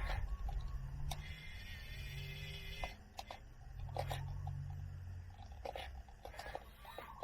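Small electric motors of toy RC excavators whirring in three short spells of about a second each, starting and stopping as the controls are worked, with scattered light clicks and scrapes.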